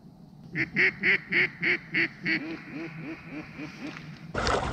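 A run of about eleven mallard quacks, about three a second: the first six loud, the rest trailing off softer. Near the end a sudden loud rustle cuts in.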